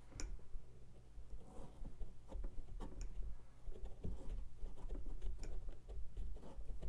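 Pumpkin being carved: irregular small clicks, taps and scrapes of a carving tool working through the rind and stringy flesh, over a low steady hum.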